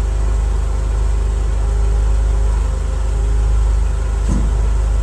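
An engine idling steadily with a deep, even hum, with one short knock about four seconds in.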